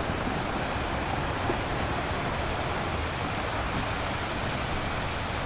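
Steady rushing noise, like running water, with a low rumble underneath.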